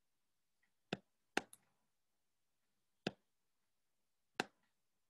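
Faint, sharp computer mouse clicks while lines are drawn: two close together about a second in, with a weaker click just after, then single clicks about three seconds in and near the end.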